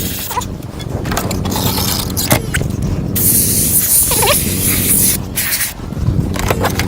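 Aerosol protectant spray being sprayed onto a car's sliding-door mechanism in short hisses, with one longer, louder burst of about two seconds near the middle.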